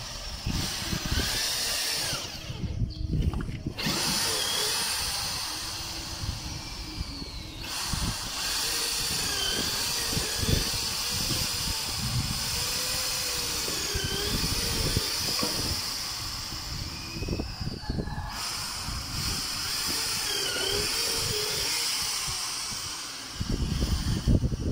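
Handheld power drill boring dowel holes into the edge of a wooden boat plank, running steadily with two brief stops. The holes are for the wooden pegs (pasak) that join the planks in traditional boat building.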